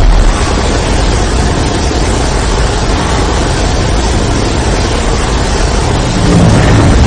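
SpaceGodzilla creature sound effect: a loud, steady rushing noise over a deep rumble, with no clear pitch.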